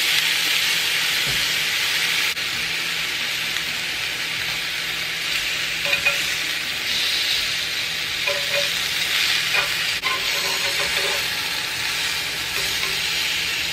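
Thin chicken breasts sizzling steadily on a smoking-hot grill pan, just sprinkled with lemon juice, with a few light clicks of metal tongs moving the pieces.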